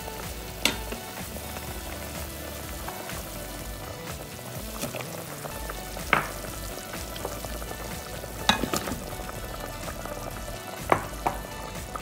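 A pot of chicken soup at a hard rolling boil, with a steady bubbling hiss. About six sharp knocks and plops break through as green chilies and vegetable wedges are dropped into the broth.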